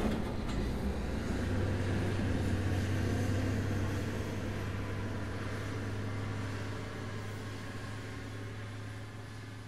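Quarry dump truck's diesel engine running with a steady low drone that slowly fades away.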